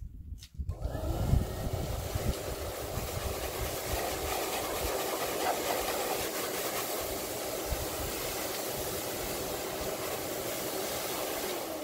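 Dog grooming blower switched on a little under a second in, then running steadily with a loud rush of air over a low motor rumble. It drops away near the end.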